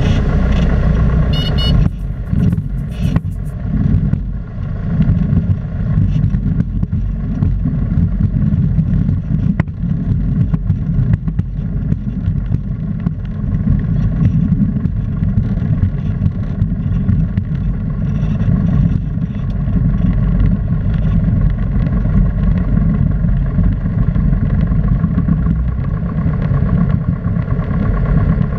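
Steady drone of a Piper PA-28-161 Warrior's four-cylinder Lycoming engine and propeller, heard inside the cabin in flight, with airflow noise.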